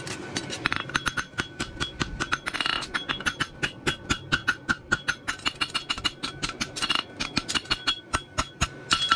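Hammer striking hot steel on an anvil in quick repeated blows, several a second, with the anvil ringing between strikes. The farrier is bringing the two branches of a bar shoe together so the scarfed ends line up for forge welding.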